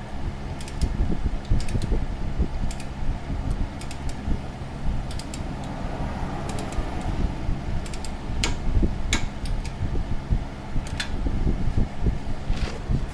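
Electric fan running steadily, with a scattering of short, sharp metallic clicks and clinks from hand tools and parts being handled during suspension work.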